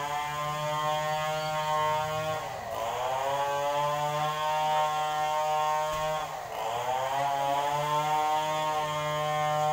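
Two-stroke chainsaw engine running at high revs, its pitch dipping sharply twice and climbing straight back.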